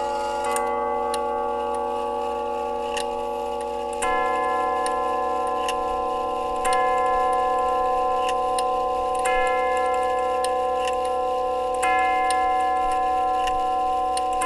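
Howard Miller grandfather clock movement striking its tubular chimes: a ringing note, then single tube strikes about every two and a half seconds, each ringing on into the next, over the faint ticking of the movement.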